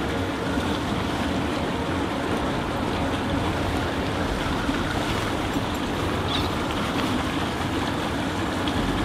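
A motorboat under way: a steady engine drone mixed with rushing water.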